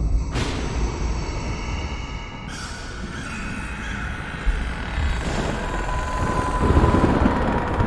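Dark, spooky ambient sound effect: a deep, continuous rumble with noisy swells, one just after the start and another about two and a half seconds in, a thin held tone around six seconds in, and the rumble growing louder near the end.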